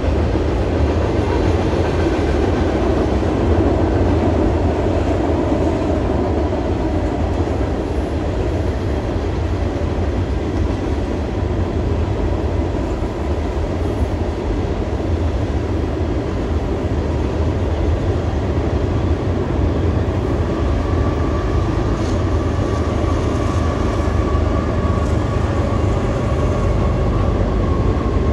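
A freight train's cars rolling past: a steady rumble of steel wheels on the rails.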